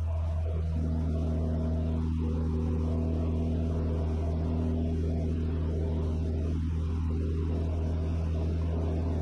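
Steady drone of a Van's RV-6A's piston engine and propeller in flight, heard from inside the cockpit.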